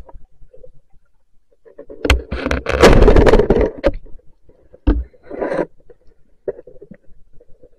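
Underwater knocks, scraping and rushing water against the camera housing as a fish is speared and pulled in on the spear. The loudest clatter lasts about two seconds, starting about two seconds in. A sharp single knock and a shorter rush follow about a second later.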